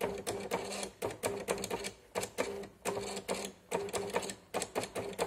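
Cash register printing on its paper tape: a steady motor hum with sharp clicks about four times a second as it prints line by line.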